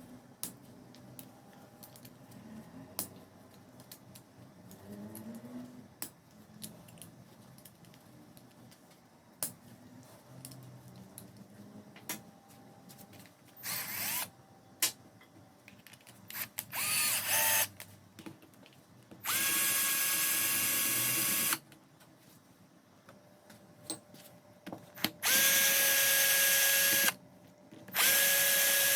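Soft handling clicks and knocks, then an electric drill or screwdriver running in several bursts of one to two seconds, each at a steady speed and starting and stopping abruptly.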